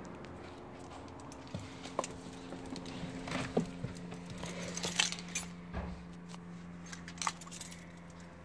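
Mercedes-AMG G65's twin-turbo V12 idling after a cold start, a low steady hum, with scattered light clicks and knocks over it.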